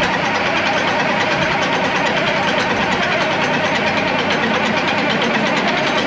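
Massey Ferguson 1155 tractor's V8 diesel engine idling steadily with a fast, even pulse, warming up after its first start of the day.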